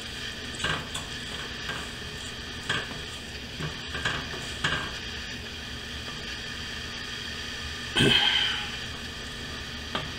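Kitchen tongs knocking lightly against a cast iron skillet as fajita filling is lifted out, several short clinks in the first few seconds and one louder clank about eight seconds in, over a faint steady hiss.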